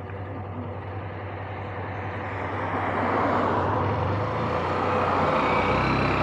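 Motorcycle engine running at low speed, then getting louder about two to three seconds in as the bike pulls away and picks up speed, with rushing road and air noise growing alongside it.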